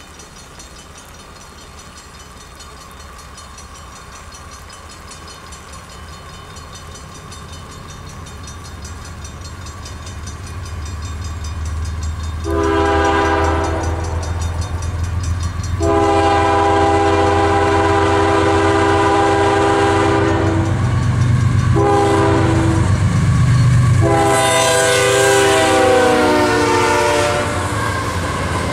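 Canadian Pacific diesel freight locomotive approaching, its engine rumble growing, then sounding its multi-note air horn in a long, long, short, long crossing pattern; the horn's pitch drops in the last blast as the locomotive passes, and the freight cars start rolling by near the end.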